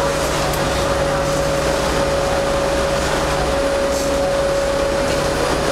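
Tour boat's engine drone heard inside the glass-roofed passenger cabin: a steady noise with a constant humming tone over it.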